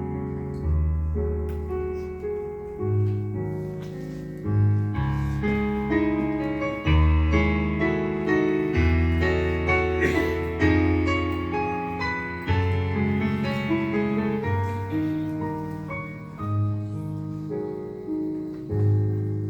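Slow instrumental introduction on piano or electric keyboard: sustained chords over low bass notes that change every second or two.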